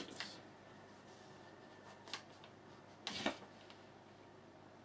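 Faint handling noises on a tabletop: a click at the start, a brief tick about two seconds in, and a short rustle around three seconds in.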